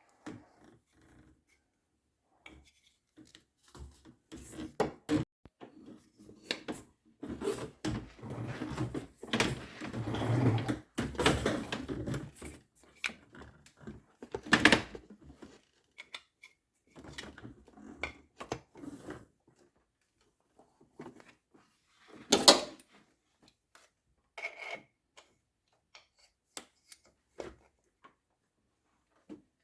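Intermittent handling noise: hard parts knocked, clicked and rubbed together, in scattered clusters, with one sharp knock about two-thirds of the way through.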